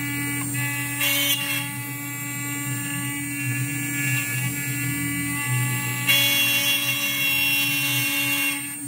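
CNC router spindle running and cutting a pocket in a wooden board, with the steady whine of the stepper motors moving the gantry. The whine gets louder and brighter briefly about a second in, and again from about six seconds until near the end.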